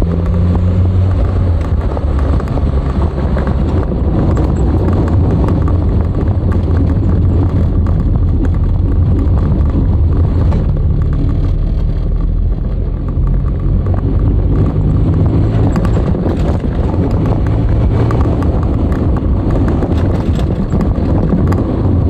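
Nissan Skyline DR30 RS Turbo's FJ20ET turbocharged inline-four running steadily as the car drives, with road noise; the engine pitch shifts a little now and then.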